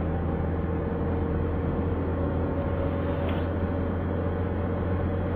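Car driving at a steady speed, heard from inside the cabin: a constant low engine and road drone with even tyre noise over it.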